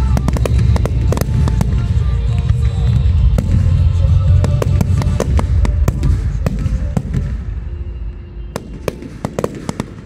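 Fireworks display: aerial shells bursting and stars crackling in a dense barrage over a deep rumble. The barrage thins out after about seven seconds, leaving a few last separate bangs near the end.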